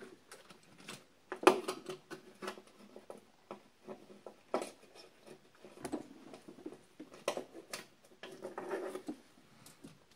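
Hands working among the wiring and hoses of an engine bay: irregular clicks, knocks and rustles of parts being handled, the loudest click about one and a half seconds in.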